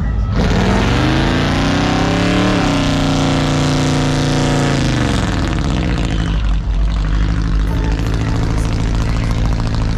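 Car engine revved: the pitch climbs over about two seconds, holds high for about two seconds, then falls back and settles to a steady idle.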